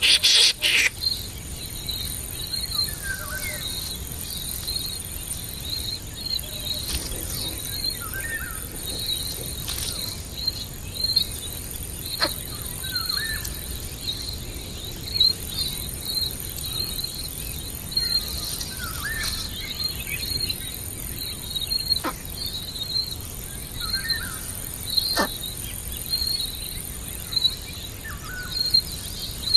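Insects chirping in a steady repeating pulse, about two a second, with short high calls every few seconds and a few sharp clicks. A loud noisy burst dies away about a second in.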